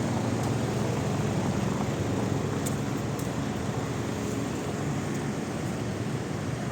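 Steady low engine drone that fills the street while the power is out, with two faint clicks about three seconds in.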